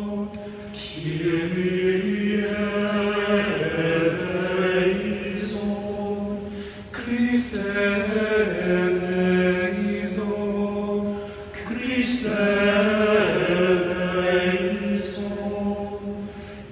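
Slow sung liturgical chant: voices holding long notes that step from pitch to pitch in unhurried phrases, with short breaths between them.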